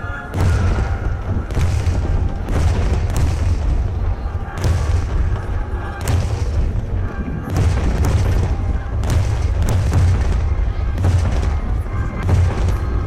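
Water-launched starmine fireworks going off in a rapid barrage, with deep booms from shell after shell and sharp crackling reports between them. Music plays underneath.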